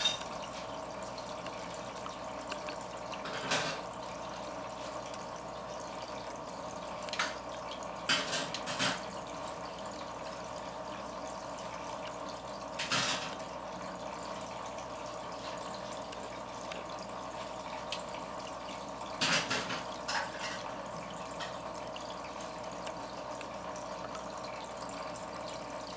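A steady hum with a handful of brief water drips or small splashes spread through it, about two of them close together a little past 8 s and again around 19–20 s.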